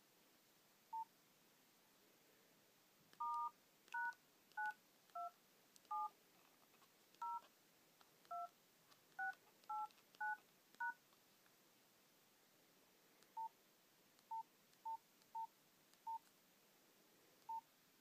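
Nokia Asha 210 keypad tones: a single short beep, then a run of about eleven two-note touch-tone (DTMF) beeps as a star-hash service code is keyed in. Six single short beeps follow as further keys are pressed.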